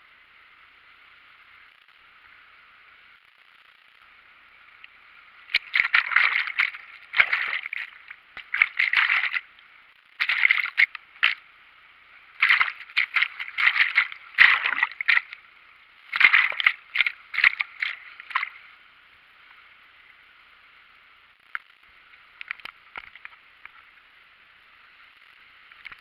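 Churning whitewater of a river waterfall sloshing and splashing right at the microphone, thin-sounding over a steady faint hiss. It comes in irregular loud bursts from about five seconds in until about eighteen seconds, with a few fainter splashes near the end.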